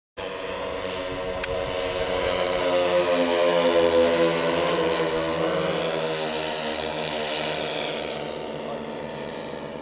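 Engine of a radio-controlled model warbird flying past: the propeller drone grows louder to a peak about four seconds in, then fades, its pitch dropping as it goes by.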